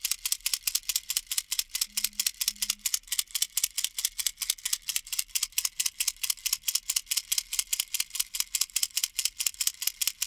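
A plastic baby rattle shaken steadily and rhythmically, about five or six quick shakes a second, its beads making a bright, dry rattle.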